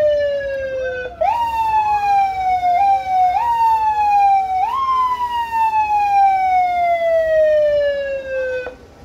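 Emergency vehicle siren, loud, its tone pushed up quickly and left to fall slowly several times over; it breaks off briefly about a second in and cuts off sharply near the end.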